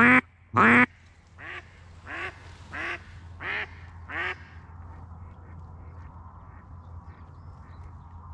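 Live decoy hen duck quacking in a run of calls: two loud quacks, then five softer ones about two-thirds of a second apart, ending after about four seconds. This is the hen's calling that draws drakes in. A faint steady low hum lies underneath.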